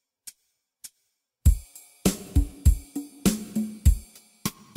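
Drum kit: two last count-in clicks, then about a second and a half in a beat starts with bass drum, snare and crashing cymbals.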